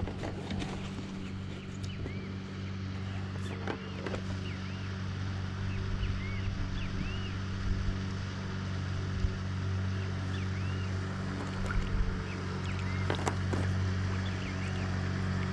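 A small motor runs at a steady pitch, driving the kayak along, with birds chirping now and then.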